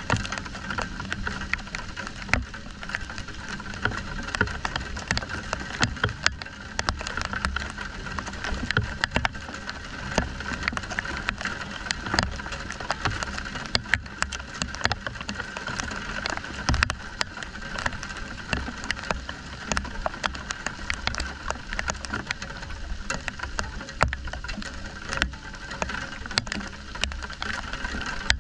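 Rain falling steadily during a thunderstorm, with many sharp drops ticking close by.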